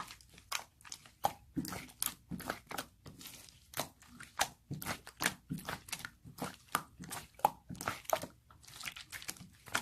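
Runny clear slime being squished and poked by hand, giving irregular sticky clicks and pops several times a second.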